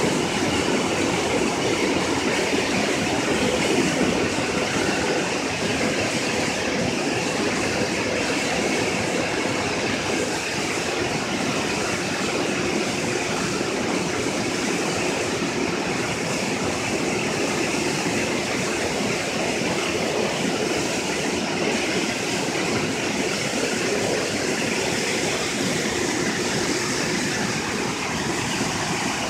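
Water blasting out of an open dam flood gate and crashing into the churning river below: a steady, loud rush of water.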